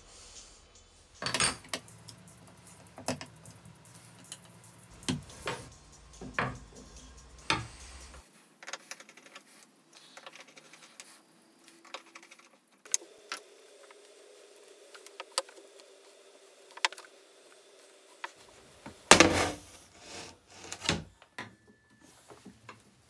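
Hand tools and small metal parts clicking and knocking on a wooden workbench, scattered single knocks with the loudest clatter a little past two-thirds of the way through.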